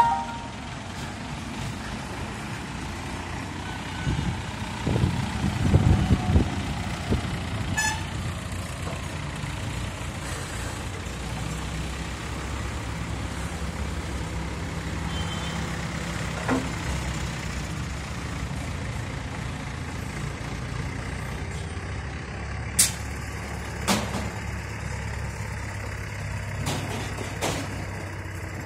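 Diesel engine of a mobile hydraulic crane running steadily as it holds and moves a suspended load, with a louder low rumble about four to six seconds in. A few sharp knocks come near the end.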